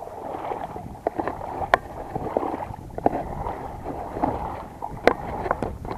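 Shallow seawater lapping and sloshing, with scattered small splashes and clicks over a steady watery hiss.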